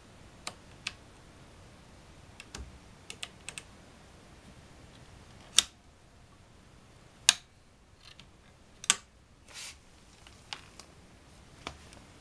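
Scattered sharp clicks and clacks from a Walther LGM-2 match air rifle being handled: its diopter rear sight's knobs turned and its metal parts handled, with three louder clacks in the middle and a short scrape just after them.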